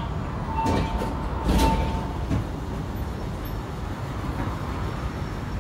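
Interior running sound of a Hiroden 5100-series (Green Mover Max) low-floor tram under way: a steady low rumble. About a second in there are two sharp knocks with a short ringing tone between them.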